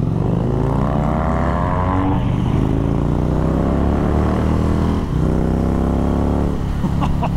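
Cruiser motorcycle with a Jekill and Hyde aftermarket exhaust accelerating through the gears. The engine note climbs, breaks at a gear change about two seconds in and again about five seconds in, then climbs once more.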